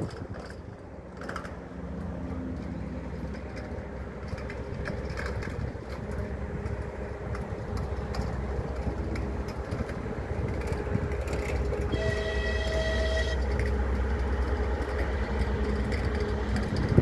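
TEP70BS diesel passenger locomotive approaching with its train: a low engine and rail rumble that grows steadily louder, with one short horn blast of just over a second about three-quarters of the way through.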